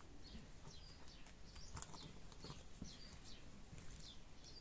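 Faint, quick chirps of small birds, high and falling in pitch, several a second, over light clicks of a leather belt and its screw fitting being handled.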